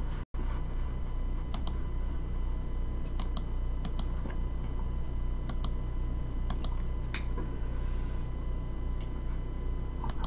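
A dozen or so light, sharp clicks at irregular intervals over a steady low electrical hum, with a momentary dropout of all sound just after the start.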